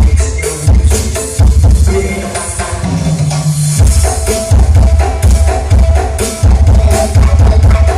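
Loud dance music through a large sound system at a sound check: a heavy, pounding bass-drum beat with percussion on top. The beat drops out about two seconds in, leaving a held low bass note, and comes back in about four seconds in.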